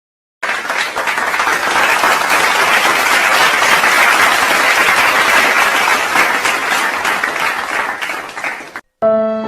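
Crowd applause: many hands clapping in a dense, even patter that starts suddenly and cuts off abruptly near the end.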